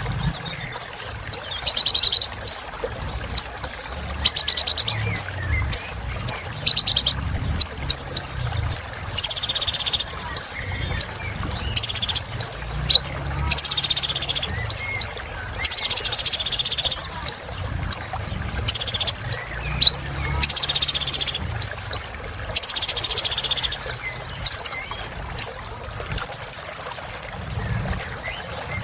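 Kolibri ninja sunbird singing vigorously: a rapid stream of sharp, high chips broken every few seconds by short buzzy trills, over a faint low hum.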